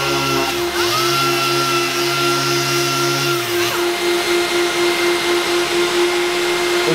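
Small orbital body-shop sander running on a car's filler-coated rear quarter panel, with a steady machine hum underneath. Its pitch dips briefly and climbs back about a second in. The sander stops about three and a half seconds in, while the hum carries on.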